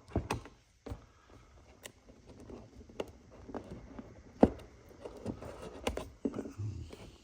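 Old shifter bushings being popped out of the shift linkage by hand: a series of sharp clicks and knocks at irregular intervals, the loudest about four and a half seconds in, with handling noise between them.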